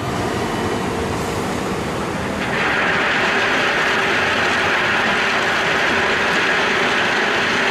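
Tipper truck's engine running as its body raises; about two and a half seconds in, a load of crushed stone starts pouring out of the tilted body with a steady rushing rattle.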